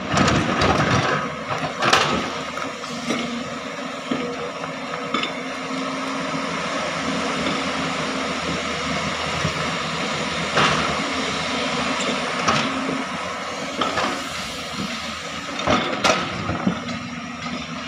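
JCB 205 tracked excavator's diesel engine running steadily while it digs, with a few sharp knocks as the bucket works into earth and stones, the loudest about two seconds in.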